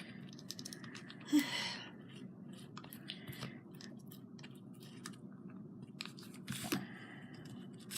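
Faint rustling and small clicks of artificial flowers and craft pieces being handled on a table, with two louder short sounds about 1.5 and 6.7 seconds in.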